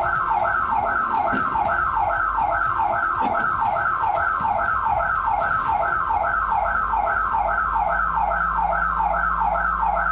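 Home intruder alarm siren going off, an electronic yelp of quick falling sweeps repeating about three times a second.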